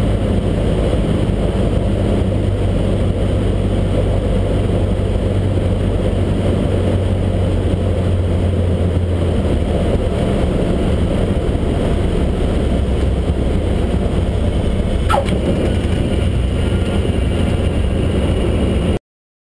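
Cessna 152's four-cylinder engine and propeller droning steadily inside the cockpit, with rushing airflow. The engine note drops a little about halfway through, there is a brief click about 15 seconds in, and the sound cuts off abruptly near the end.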